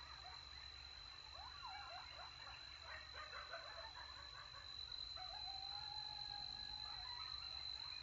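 Distant pack of coyotes howling and yipping together: a flurry of short rising and falling yips a couple of seconds in, then a long low howl near the middle. This is the chorus coyotes give when feeding after a kill. A steady high-pitched whine runs underneath.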